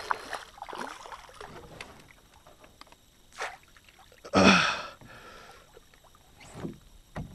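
Hooked smallmouth bass splashing and thrashing at the surface beside a canoe, with fainter water sounds, while the angler keeps pressure on the line. About four and a half seconds in there is a short, sharp gasp.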